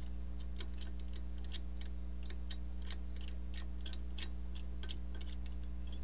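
Brake caliper piston compression tool being unscrewed by hand and pulled off the caliper: a string of small, irregular metallic clicks over a steady low hum.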